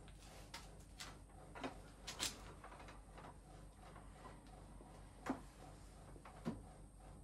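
Wooden folding sofa base being unfolded, its frame pivoting down from upright to flat with a few scattered clicks and knocks from the wooden joints; the sharpest knock comes about five seconds in.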